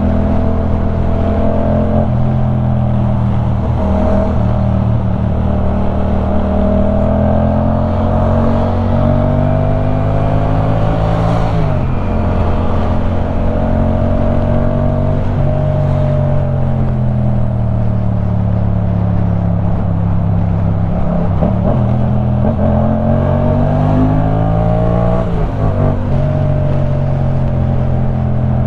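2015 Yamaha MT-07's 689 cc 270° parallel-twin engine through a LeoVince One Evo full-system exhaust, under way. The engine note climbs, drops sharply at a gear change about twelve seconds in, then falls and climbs again to another shift about twenty-five seconds in.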